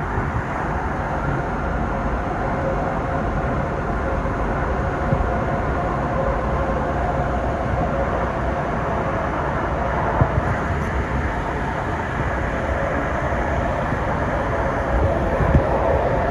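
Interior running noise of a Sound Transit Series 2 light rail car under way: a steady rumble with a faint held whine and a few light clicks.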